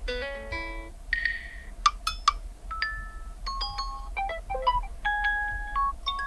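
Huawei Nova 10 notification tones playing one after another: several short, bell-like electronic chimes and plinks of a few notes each, separated by brief gaps.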